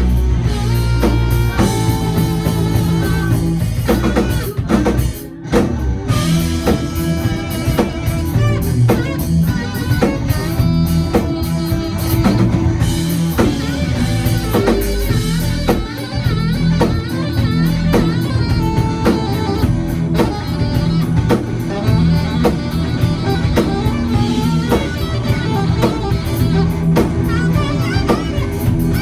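Live band playing a rock-style tune with guitar and drum kit, with a brief break in the sound about five seconds in.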